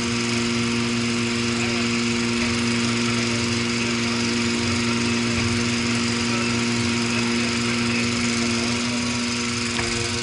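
Engine of a Eurodig Dumpy 800 compact machine running at a steady, even speed, a constant drone with no change in pitch, while its boom lowers a hanging bucket.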